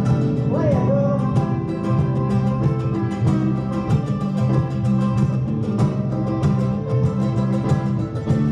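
Bluegrass gospel band playing live on acoustic strings, with guitar and mandolin over a steady bass line; mostly instrumental here.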